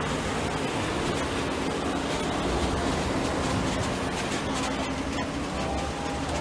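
Engines of WWII-era military vehicles, a Dodge-style weapons carrier and jeeps, running steadily at low speed as they drive slowly past, with tyres on cobblestones.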